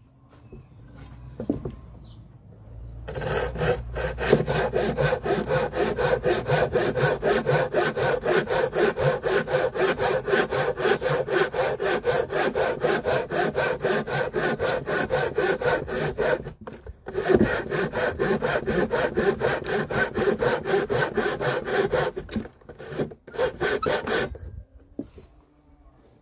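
Japanese pull saw cutting across a softwood board by hand, in fast, even strokes of about three to four a second. There is a short pause about two-thirds of the way through, and the sawing stops near the end.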